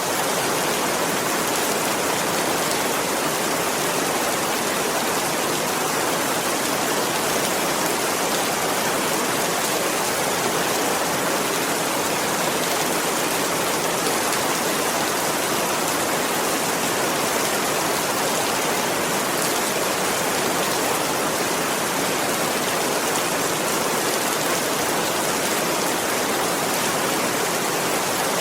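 Steady rain falling, an even, unbroken hiss with no single drops or gaps standing out.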